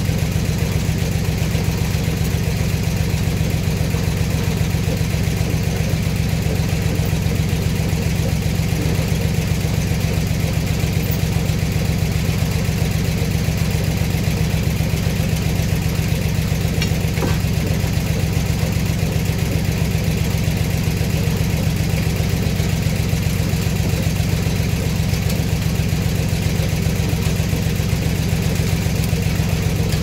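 Engine powering an antique sawmill, running steadily with an even low throb, not loading up: the saw is not in the cut.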